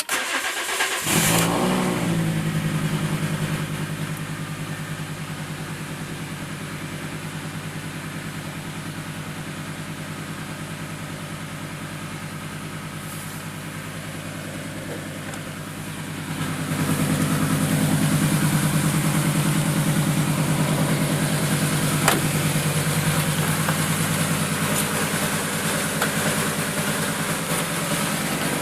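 Fiat Marea 2.4 five-cylinder engine starting, briefly running up, then idling steadily and getting louder about halfway through. The idle carries a strange noise that the owner suspects comes from the cam phaser or the manifold.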